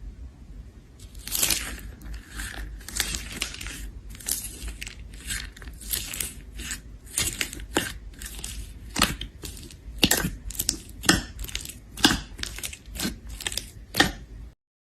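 Slime being squeezed and pressed by hand, making a run of short crackling pops and squishes that come as sharper, more separate snaps in the second half and stop abruptly near the end.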